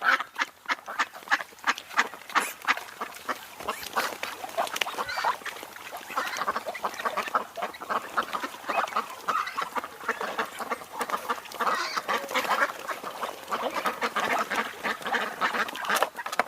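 A flock of ducks quacking: many short calls overlapping in a dense, continuous chorus.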